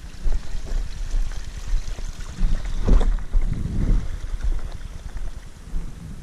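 Wind buffeting the camera microphone as a low, uneven rumble, with a few scuffs and knocks from movement, loudest about three seconds in.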